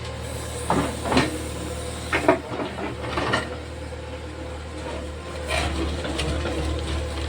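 Backhoe loader's diesel engine running steadily, with several short knocks and scrapes over it.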